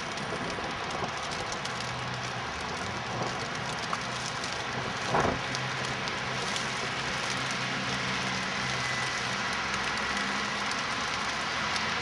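Steady outdoor hiss of a snowy park, with a low hum of distant traffic underneath. A brief louder rush about five seconds in.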